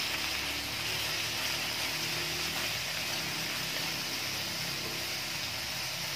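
Marinated pork sizzling steadily in a hot nonstick wok while being stirred with a spatula.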